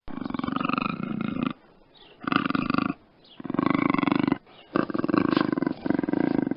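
Puma (cougar) vocalising: a series of about five low calls, each up to about a second and a half long, with brief pauses between them.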